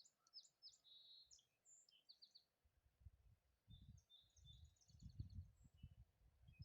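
Faint, quick high chirps and short trills of small birds in two clusters, with low rumbling thumps through the second half.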